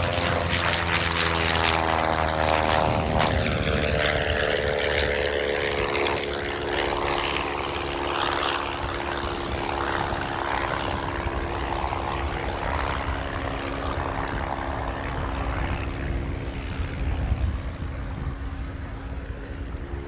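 Piston engine and propeller of a biplane flying a low pass: the engine note drops in pitch over the first few seconds as it goes by, then settles into a steady drone as the plane climbs away.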